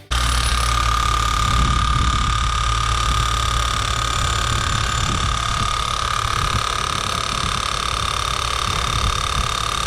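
Mini excavator's diesel engine running steadily, a low drone with a steady high whine over it.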